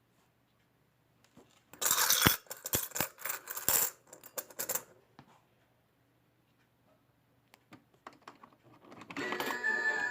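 Coins clattering and clinking for about three seconds, a rapid run of sharp metallic clicks, followed by a few scattered clicks. Near the end the mini claw machine starts playing its electronic tune.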